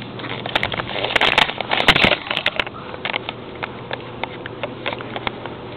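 Handling noise of plastic Lego figures held against the microphone: a burst of rustling and scraping, then scattered sharp clicks a few times a second.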